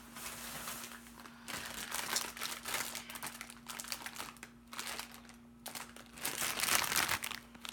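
Plastic candy wrapper crinkling as it is handled. The rustling comes and goes and is loudest about six to seven seconds in.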